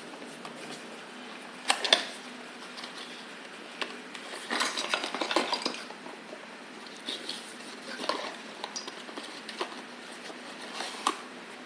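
A small cardboard box being opened and its paper booklets handled: scattered taps, scrapes and rustles of cardboard and paper, with a busier stretch of rustling in the middle.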